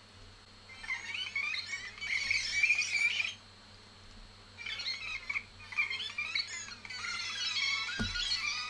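A greeting-card sound chip plays its melody through its small speaker as warbling, chirping electronic tones. It is circuit-bent, with a 100K potentiometer wired across its timing resistor, so the pitch and tempo shift as the knob turns: less resistance gives higher and faster, more resistance lower and slower. The tune stops about three seconds in and restarts a second or so later, with a sharp click near the end.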